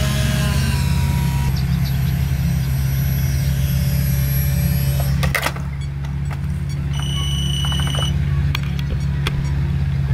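Small electric motor of an RC foam plane whining, then cutting off about a second and a half in, over a steady low hum. A brief run of high beeps sounds partway through.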